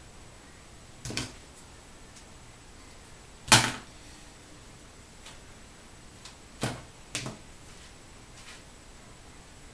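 Close-up handling noise: four sharp clicks and knocks, as from hair tools such as a comb and clips being picked up, snapped or set down, the loudest about three and a half seconds in, over a faint steady hiss.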